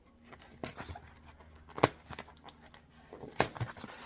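A small dog panting and sniffing close by, with scattered light taps and two sharp clicks, about two and three and a half seconds in, from a taped Styrofoam box being handled.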